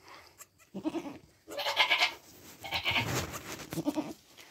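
Nigerian Dwarf goats bleating around newborn kids: about three calls in a row, starting about a second in.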